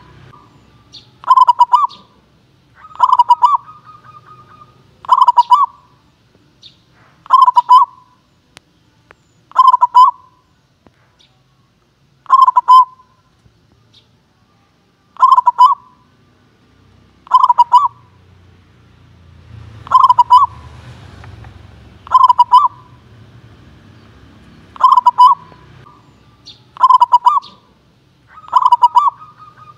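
Zebra dove (perkutut) singing its cooing call: a short burst of rapid, pulsed notes repeated about every two seconds, a dozen or so times in a row.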